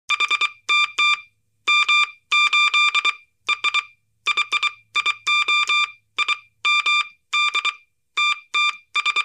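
Electronic beeping sound effect of an animated title intro: clusters of two to six rapid, same-pitched bleeps, like computer data chatter, repeating with short gaps.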